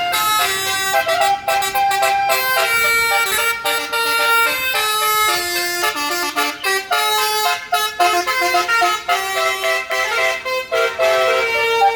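A Basuri 'telolet' multi-tone bus horn playing a tune: a quick run of held horn notes that step up and down in pitch, each lasting about half a second or less.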